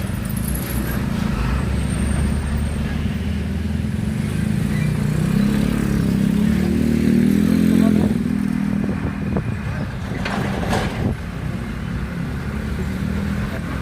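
Road traffic at a level crossing: engines of motorcycles and cars running steadily. A heavy vehicle's engine note rises and grows louder about five to eight seconds in as it passes. A short hissing burst follows about ten seconds in.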